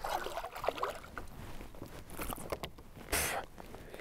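Hooked smallmouth bass splashing at the surface beside a kayak as it is landed, amid scattered knocks and handling noise.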